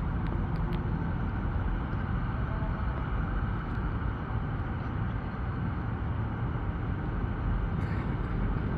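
Steady low rumble of distant city traffic, with a couple of faint clicks near the start and one near the end.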